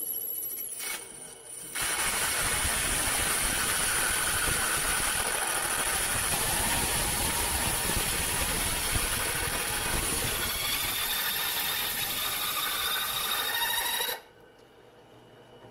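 A drill press drives a cheap carbide-tipped masonry bit under heavy down-pressure into a hardened steel knife tang. It makes a harsh, steady grinding with a high whine, and squealing tones come in during the second half. The noise cuts off sharply near the end. The bit is wearing itself away as it forces its way through the hardened steel.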